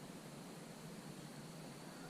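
Faint steady hiss with no distinct sound events.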